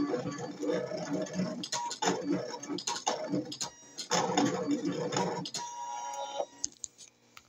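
Brother ScanNCut electronic cutting machine cutting a stencil into a sheet of paper: its motors whir and tick in short bursts as the blade carriage moves back and forth. The cutting stops a little over six seconds in, followed by a few light clicks.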